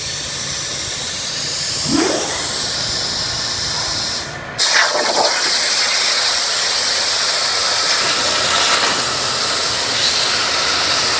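CNC plasma cutter running a cut in sheet steel, a steady loud hiss of arc and air. It drops out briefly just after four seconds in and comes back with a sudden burst.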